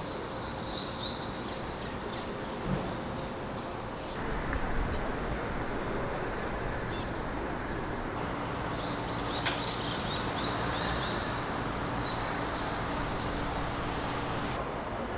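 Small birds chirping in quick runs of short high notes, twice, over a steady outdoor background of distant noise and a low hum.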